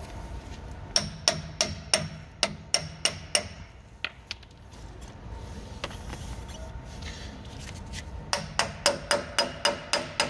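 Hammer blows on a brass punch, driving out a load wheel axle. The strikes are sharp and ringing and come about three a second, in two runs with a single blow between them.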